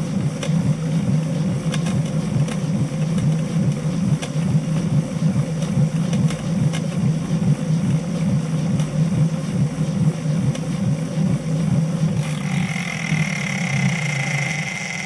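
Tacx Satori Smart magnetic bike trainer making an abnormal noise, a pulsing low rumble, after about half a year and 1000 km of use. About twelve seconds in, a steady high-pitched whine joins and the low rumble begins to fade near the end, as the trainer slows toward a stop.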